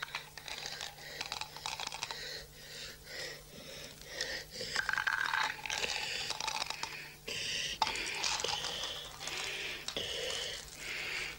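Glass marbles clicking and rattling against one another as they are handled and trickled in and out of plastic cups.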